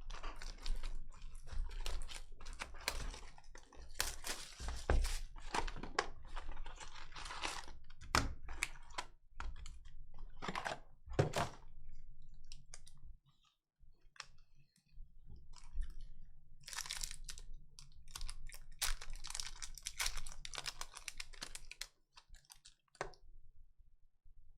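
Upper Deck hockey card packs and their hobby box being opened by hand: wrappers torn and crinkled, with handling rustles and clicks in irregular bursts. There is a short lull about halfway through.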